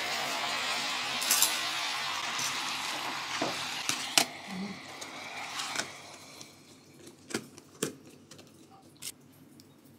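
Self-heating hot pot's calcium oxide heating pack hissing with steam as it reacts with water, fading out about six seconds in. Sharp plastic clicks and knocks as the pot's plastic lid is set on and pressed into place.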